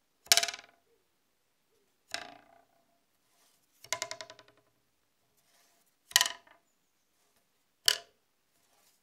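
A thin wooden stick held flat on a wooden plank, its overhanging end bent and let go, twanging five times about two seconds apart, each a short buzzing rattle against the plank that dies away quickly, the pitch shifting from one to the next as the hand moves along the stick. It is the foley trick for the thud of a knife, arrow or spear sticking into a target.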